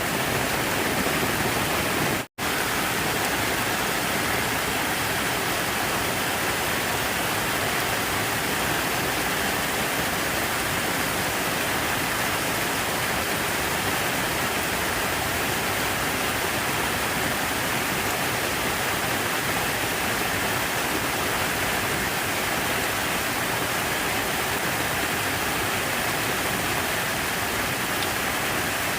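Steady, even rush of falling water from a water feature such as a fountain or artificial waterfall. It cuts out almost completely for a split second about two seconds in.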